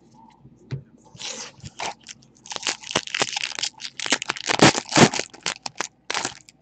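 Foil wrapper of a 2014-15 Donruss basketball card pack crinkling and tearing in the hands, a dense run of sharp crackles.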